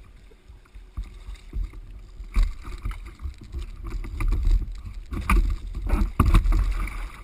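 Water splashing and slapping against a plastic fishing kayak, with irregular knocks and thuds on the boat and a constant low rumble; the knocks and splashing grow busier and louder in the second half.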